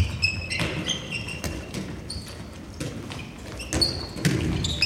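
Handballs bouncing on a sports hall floor and slapping into players' hands, a string of sharp impacts, with short high squeaks of shoes on the floor between them.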